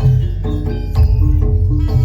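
Loud live gamelan music accompanying a jaranan (kuda lumping) dance: tuned percussion plays a quick repeating pattern of struck notes over a heavy, steady bass.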